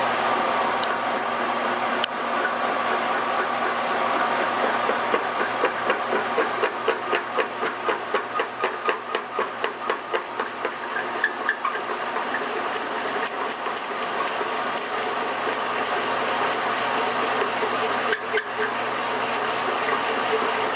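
Machine-driven hole saw cutting a fish-mouth notch into a metal subframe tube, the cutter grinding steadily. For several seconds in the middle the cut chatters rhythmically, about two to three beats a second.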